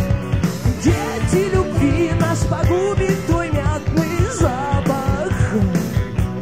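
Rock band playing with electric guitars, bass and drums keeping a steady beat. A male voice sings a phrase from about a second in until shortly before the end.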